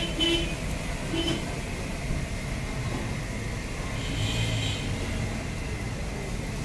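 Steady low rumble and hiss of a street chip stall's frying station, with potato chips cooking in a large pan of hot oil.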